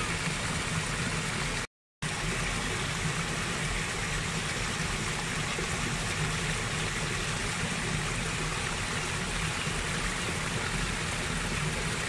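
Small rocky stream splashing and trickling in little cascades over boulders, a steady rush of water. It cuts out completely for a moment just before two seconds in.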